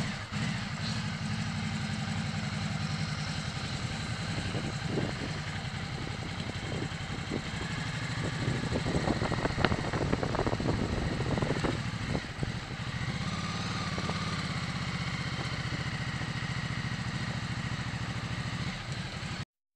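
Ducati Multistrada motorcycle engine running steadily at low revs while riding off slowly, heard from the bike's own camera. A few light knocks come through around the middle, and the sound cuts off suddenly just before the end.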